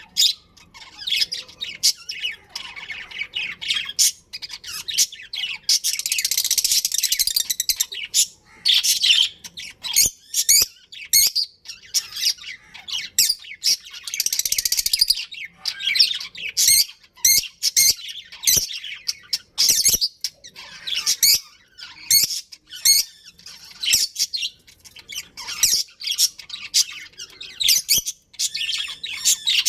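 Budgerigars chirping and chattering in a rapid run of short, high calls, with denser warbling stretches about six and fourteen seconds in.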